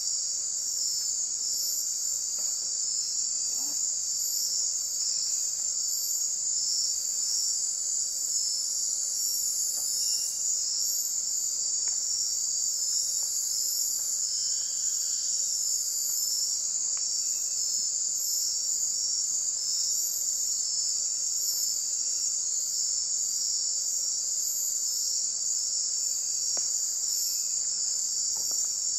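Dense chorus of night insects: a steady high shrill with a higher, rapidly pulsing chirp above it.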